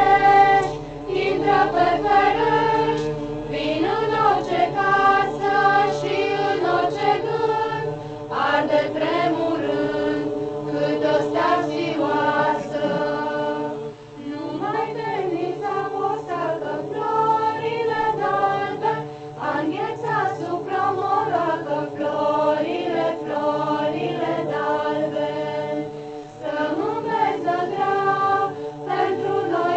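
A mixed group of carolers singing a Romanian Christmas carol (colindă) together, in sung phrases broken by short pauses for breath.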